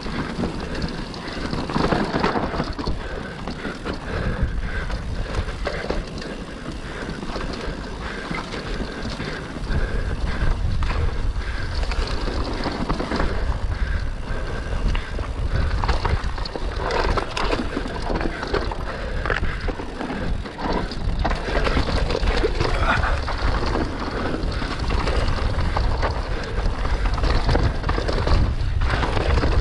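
Mountain bike riding down a dirt forest trail: tyres running over the ground and the bike rattling and knocking over bumps. A heavy low rumble comes in about ten seconds in and stays.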